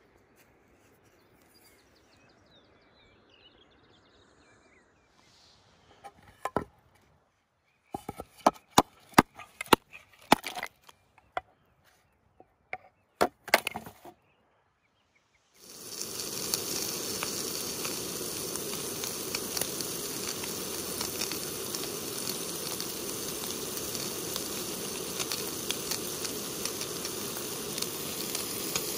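Several seconds of sharp knocks and cracks as ice is broken up on a wooden board. About halfway through, bacon starts sizzling in a camping frying pan, a steady frying noise that keeps on.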